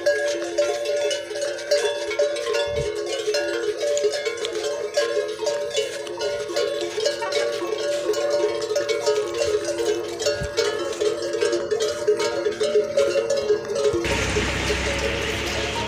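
Many camel bells clanking and jangling together without pause as a string of camels walks, with several ringing pitches overlapping. Near the end a steady rushing noise joins in under the bells.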